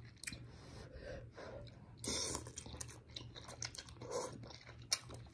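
Close-up eating of instant noodles: wet chewing and lip smacks, with louder slurps as strands of noodles are drawn into the mouth about two seconds in and again about four seconds in.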